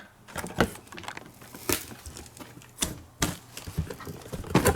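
Irregular clicks and taps of plastic blister-carded Hot Wheels die-cast cars being handled and set down, about half a dozen sharp ones with softer rustling between.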